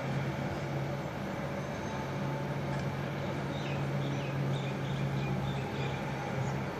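A steady low hum with several held tones above it: the unexplained 'trumpets of Jericho' drone, which the uploader takes for something man-made and says sounds a bit scary. A few faint short chirps come through around the middle.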